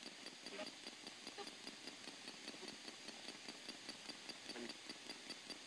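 Faint, rapid, even clicking, about five clicks a second, over low static: a PSB-7 spirit box sweeping the AM band in 200 ms steps.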